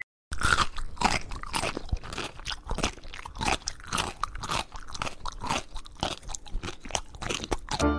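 A cat chewing on a sneaker: a quick, irregular run of crunches.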